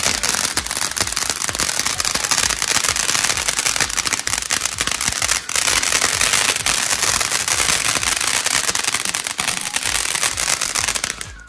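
Ground fountain firework (a flower pot) burning steadily, with a loud, continuous hiss of spraying sparks full of fine crackling. It cuts off suddenly near the end.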